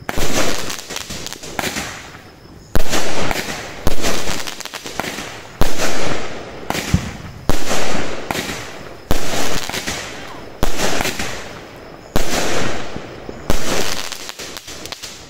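Pyro King 'Armored' 16-shot 200-gram consumer firework cake firing shot after shot, about ten loud reports one every second or so, each a sudden bang that fades away over about a second.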